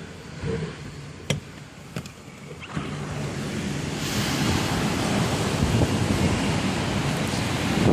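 Typhoon wind gusting and buffeting a smartphone microphone, swelling about three seconds in and stronger still from four seconds on, with a couple of sharp clicks before the gust builds.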